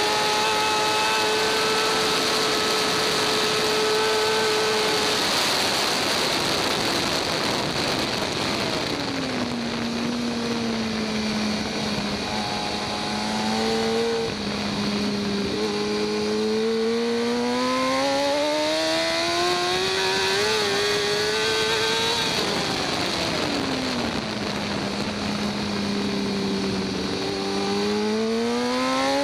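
2014 BMW S1000RR's inline-four engine heard onboard at racing speed: it holds a steady high pitch, falls away twice as the bike slows for corners, and climbs in long rising runs under acceleration between them. A steady rush of noise lies underneath throughout.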